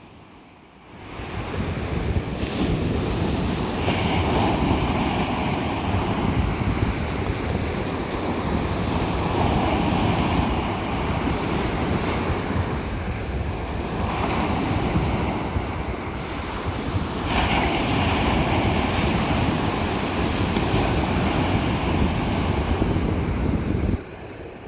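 Ocean surf breaking on a beach: a continuous wash and rumble of water that swells as each wave crests and breaks every few seconds. It fades in over the first second or two.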